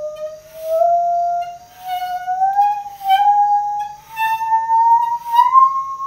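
Handsaw played as a musical saw with a rosined bow: a single clear, whistle-like tone that climbs slowly in small steps, swelling and fading with each bow stroke about once a second.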